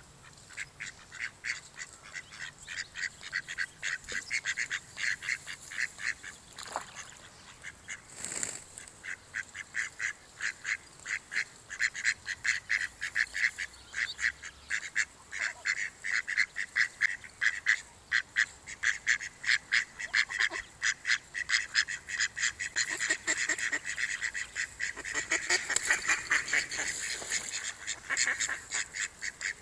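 Mallard ducks calling in a rapid run of short calls, about four a second, almost without a break and louder after the first few seconds.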